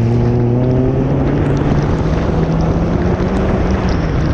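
Car engine pulling hard, its note climbing over the first second and then holding fairly steady, heard from outside the car under heavy wind noise on the microphone and the hiss of tyres through water on the wet surface.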